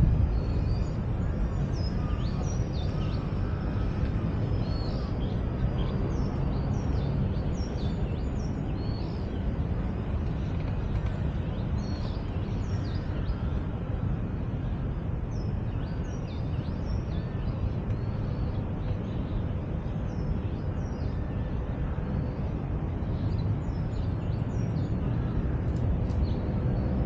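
Birds chirping in many short, high calls over a steady low rumble of background noise.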